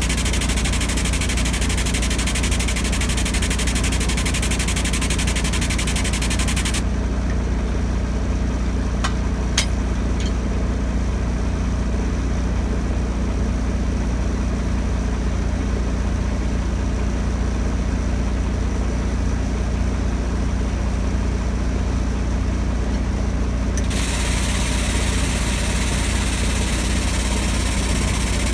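A large diesel engine idling steadily, with a steady high hiss over it that cuts off about seven seconds in and comes back near the end. A couple of faint clicks are heard while the hiss is off.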